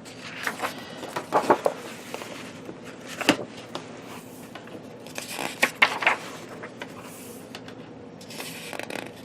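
Pages of a paper colouring magazine being turned by hand: several short paper rustles and brushes, a second or two apart.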